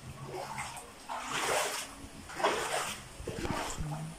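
Floodwater splashing and sloshing, in two noisy surges about a second in and about two and a half seconds in.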